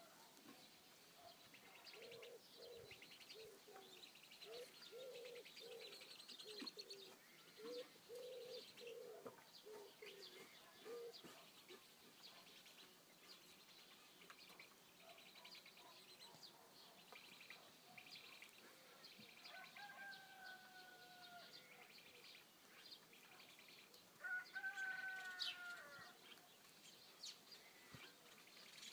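Faint mother hen clucking in a run of low, repeated clucks through roughly the first ten seconds, with chicks peeping. Later there are two drawn-out, slightly falling calls, the second and louder one about 24 seconds in.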